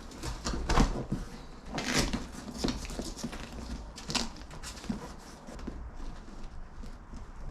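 Handling noises from a car's soft top being fitted: a series of short scrapes and rustles of fabric and plastic, the loudest about 2 and 4 seconds in, over a low steady rumble.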